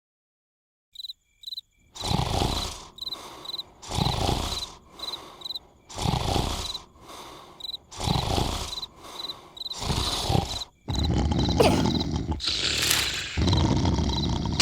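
Cartoon snoring: a loud snore about every two seconds, which turns into a longer, louder snore from about three-quarters of the way in. Steady cricket chirps run under it.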